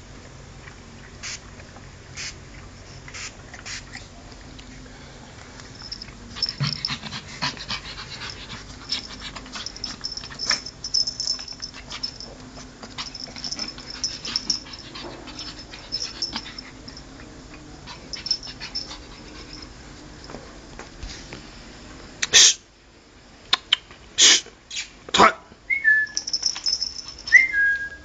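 Pug puppy making small dog noises amid scattered clicks while it is handled. Near the end come several sharp knocks and two short, high, falling squeaks.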